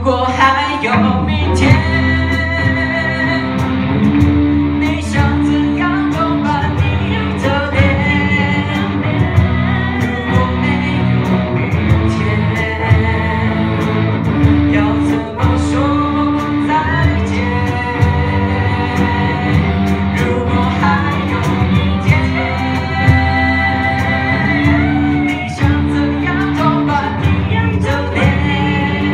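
Live band performance: a singer over electric guitars, bass guitar, keyboard and cajon.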